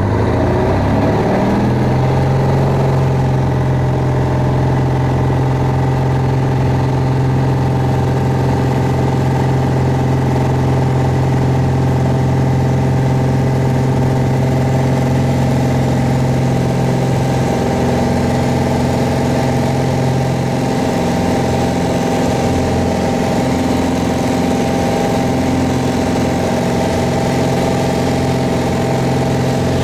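Piper Arrow's piston engine and propeller come up to full power about a second in, then run steadily through the takeoff roll and liftoff, heard from inside the cockpit.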